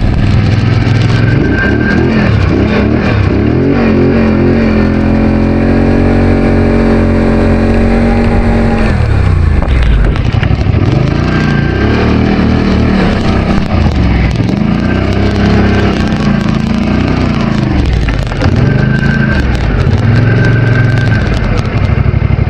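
850 snowmobile engine running under way, holding a steady pitch for a few seconds, then rising and falling again and again as the throttle is opened and eased off.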